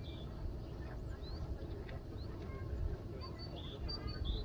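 Small songbirds chirping in winter: scattered short, high notes and quick rising chirps, busier near the end, over a steady low rumble.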